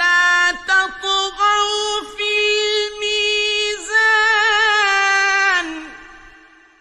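A man chanting the Quran in a high, melodic voice in the mujawwad style. He holds long notes with a few short breaths between them and ornaments the pitch with a waver, then the phrase fades out near the end.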